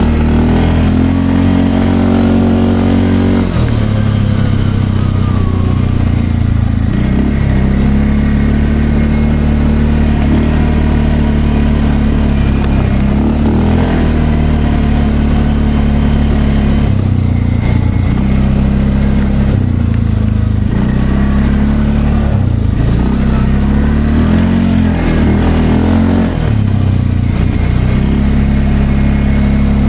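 Linhai Landforce 550L ATV's single-cylinder engine running under changing throttle while being ridden, its pitch dropping and climbing again several times.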